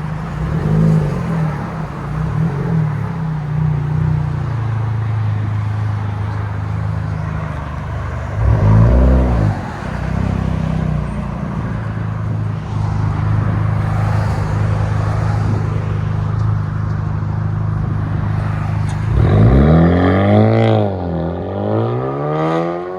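Honda Civic Type R's turbocharged four-cylinder idling through a Remark Ti-spec cat-back exhaust. It is blipped once about eight seconds in, then revved up and back down twice near the end.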